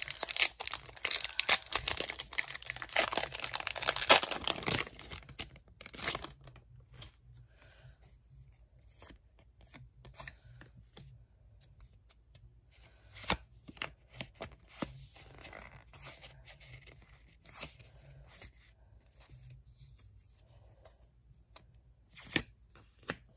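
Foil wrapper of a Pokémon booster pack crinkling and tearing open for about the first six seconds. After that come softer rustles and a few clicks as the trading cards inside are slid and handled one by one.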